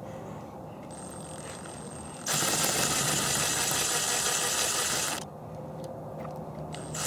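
Power drill driving a fastener into cold, hard pressure-treated wood: a faint motor whine, then a full-speed run of about three seconds that stops abruptly, and a second run starting near the end.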